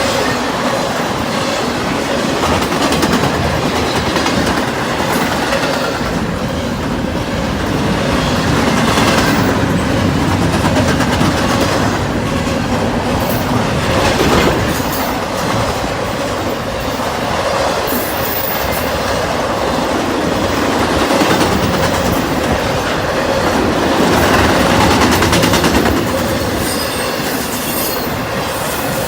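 CSX freight train's cars rolling past at speed, a steady loud rumble with wheels clacking over rail joints and some squealing from the wheels.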